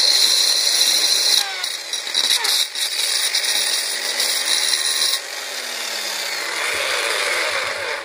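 Electric drill spinning a diamond-coated ceramic bit against the wet edge of a hole in a porcelain saucer, a steady gritty grinding hiss as the bit's diamond-coated side widens the hole. The grinding is sharper and louder for the first five seconds or so, then eases off.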